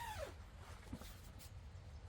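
The falling end of a single animal call, pitched and dropping in tone, then faint outdoor background with a low rumble and a soft knock about a second in.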